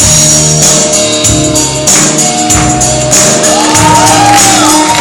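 Loud upbeat music cuts in suddenly, with a steady beat and a jingling tambourine.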